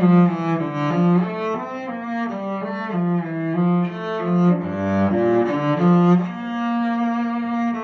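Michel-Ange Garini cello (French, made c. 1910 for JTL, strung with Kaplan D'Addario strings) played solo with the bow. It plays a melodic line of short notes, dips to a low note about five seconds in, then holds one long note near the end.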